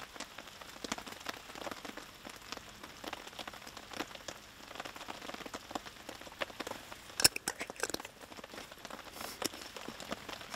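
Rain pattering in a dense, steady scatter of small ticks, mixed with venison and mushrooms sizzling in an iron skillet. One sharper click stands out about seven seconds in.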